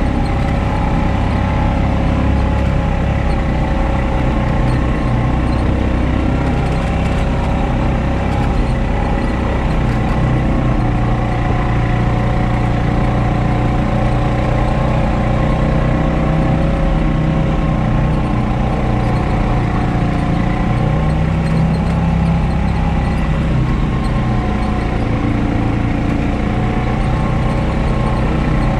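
Honda Pioneer 520 side-by-side's single-cylinder engine running steadily, its pitch shifting slightly a few times.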